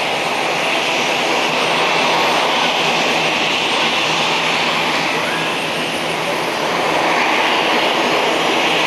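ATR 42-600's twin PW127-series turboprop engines running at taxi power: a steady propeller drone with a low hum and a higher whine, swelling a little twice.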